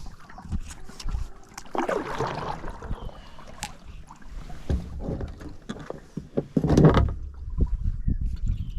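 A kayak on the water with irregular knocks and thuds against the hull. There are two louder swishing splashes, about two and seven seconds in.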